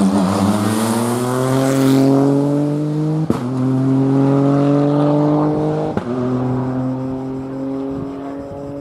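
Rally car engine accelerating hard, its pitch climbing through the gears with a sharp crack at each of two upshifts about three seconds apart, then running steadier and fading as the car pulls away.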